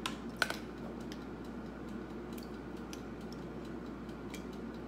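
Knife and glass jar of minced garlic being handled: two sharp clicks near the start, then faint light ticks of the knife against the jar over a steady low hum.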